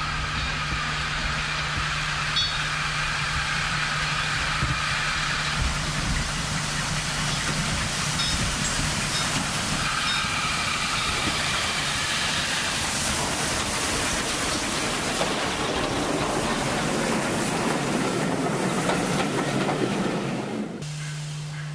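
Steam saddle-tank locomotive working a passenger train past, its noise building as it comes closer, then the coaches rolling by. The sound cuts off abruptly near the end.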